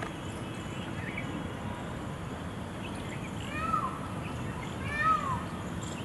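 Indian peafowl giving two short, cat-like mewing calls about a second and a half apart, each rising and then falling in pitch, over a steady low background noise.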